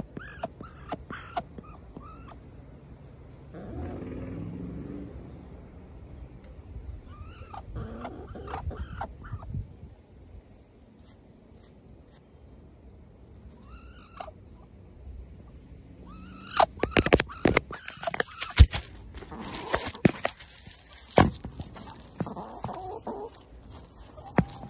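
Muscovy duck right at the microphone, making short soft calls. From about two-thirds of the way in come a run of loud sharp clicks and taps as it pecks close to the phone.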